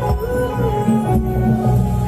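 Music: an instrumental stretch of a song, with sustained held notes over a steady bass line.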